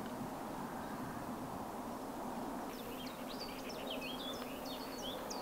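A small songbird singing a rapid run of short, quick chirps that starts about halfway through, over a steady outdoor background hiss with a faint low hum.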